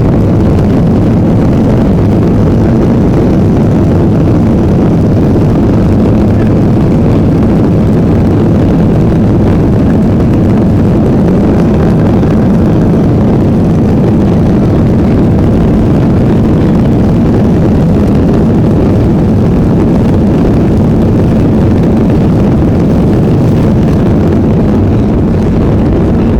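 Steady engine and air noise inside the cabin of a Boeing 737-800 with its CFM56-7B turbofans running, even and unchanging throughout, mostly low rumble with little hiss above.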